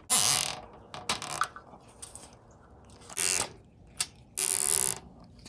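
Zip ties being pulled tight through the mounting tabs of electric cooling fans on a radiator: four short ratcheting zips.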